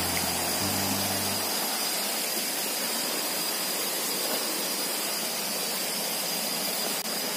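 Steady rushing of a waterfall, an even wash of falling water. Low sustained music notes sound under it at the start and stop about a second and a half in.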